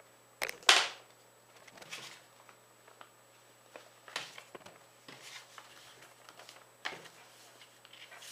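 A sheet of paper being folded and creased by hand: a few short crackles and rustles, the loudest about half a second in.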